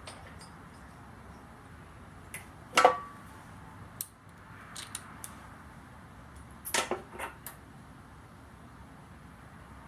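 Small metal hand tools clinking and clicking as they are handled and set down: a sharp clink about three seconds in and a short cluster of clicks near seven seconds.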